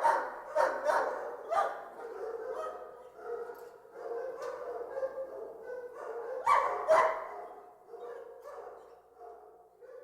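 Many kennel dogs barking at once, a continuous overlapping din, with loud sharp barks in the first two seconds and again twice at about six and a half and seven seconds, thinning out near the end.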